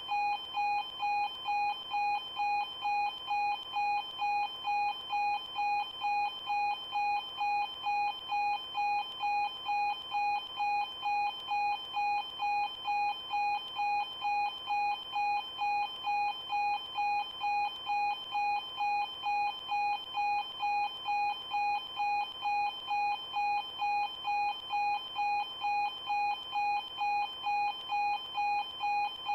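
Railway level crossing warning alarm sounding: an electronic ding repeating evenly at about two strokes a second without a break.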